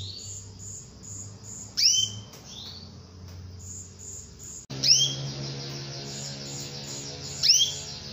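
Female domestic canary calling to a male: three short, loud calls spaced two to three seconds apart, each a quick upward-sweeping two-note chirp.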